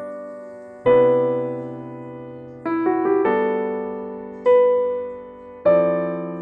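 Gentle background piano music: slow chords struck about every second or two, each left to ring and fade.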